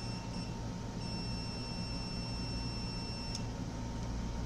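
Multimeter continuity beeper giving a high, steady tone as the probes touch a capacitor being checked for a short: a short beep right at the start, then a held tone from about a second in that stops with a click after about two seconds. The beep signals low resistance across the probes.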